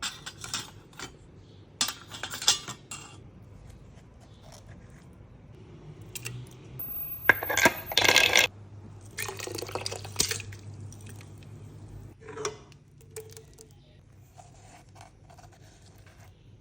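Kitchen utensils and dishes clinking and clattering in irregular short bursts, with a louder scraping or rustling stretch of about a second near the middle.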